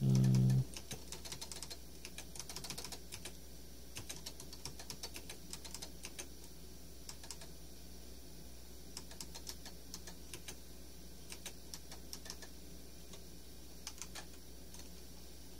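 Irregular light clicks of a computer mouse button, some in quick clusters, over a low steady hum. A brief voice sound comes right at the start.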